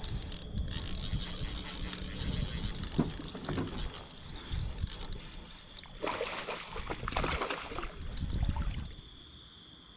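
A spinning reel being cranked with quick clicking while a hooked striped bass is fought. About six seconds in, the fish thrashes and splashes at the surface for some three seconds, then the splashing stops abruptly.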